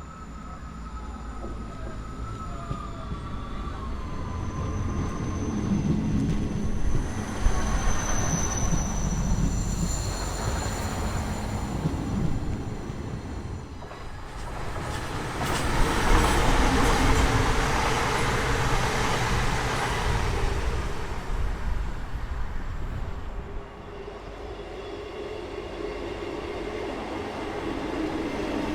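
A train passing through a station: wheels rumbling on the rails, swelling twice, with a faint high wheel squeal early on.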